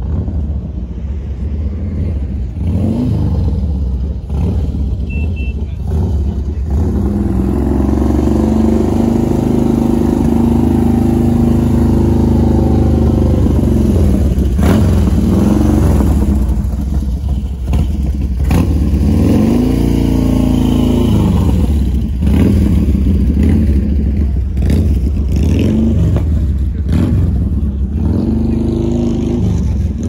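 Car engine running loud and revving, rising and then falling in pitch twice: a long rev about a quarter of the way in and a shorter one about two-thirds through.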